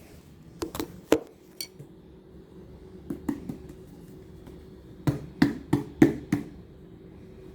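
Sharp knocks and clinks in three groups: a few about a second in, two around three seconds, then five quicker, louder ones between about five and six and a half seconds. This is a nearly empty mayonnaise container being banged against a hard kitchen surface to get the last of it out.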